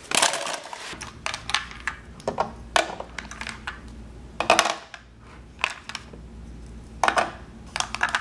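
Hard plastic toy food pieces clacking and knocking against each other and against a plastic toy basket as they are handled, a string of sharp clicks and clacks every half second to second or so.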